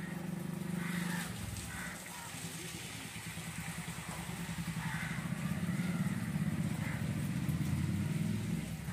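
Low, pulsing rumble of an engine running nearby, growing louder over the second half, with short faint higher sounds every second or two.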